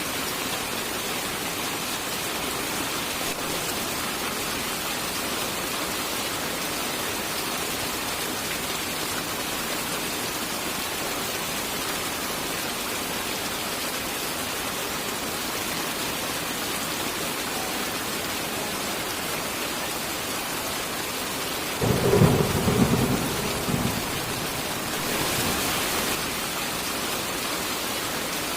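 Steady heavy rain hissing, with a burst of thunder rumbling low about 22 seconds in for a couple of seconds, followed by a brief swell of brighter rain noise.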